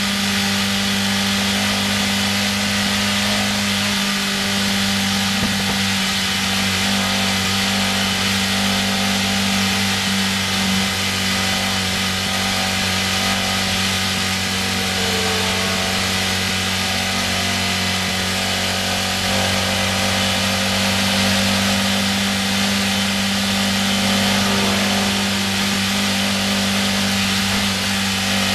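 Historic racing sports car engine heard from inside the open cockpit, running at steady, unchanging revs while cruising at about 50 mph, with a constant rush of wind and road noise over it.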